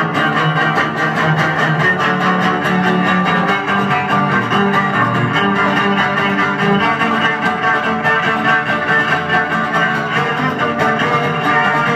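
Live duo of bowed double bass and acoustic guitar playing an instrumental passage. The bass holds long low bowed notes under the guitar's steady rhythmic playing.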